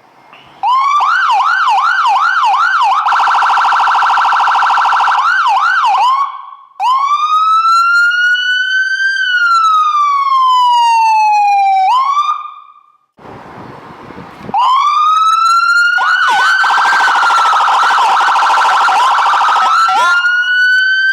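Ambulance electronic siren switching through its tones. First a fast yelp, then a harsh buzzing horn tone, then a slow wail that rises and falls. After a short break with a low rumble it starts again, the wail rising with yelp and horn tone over it.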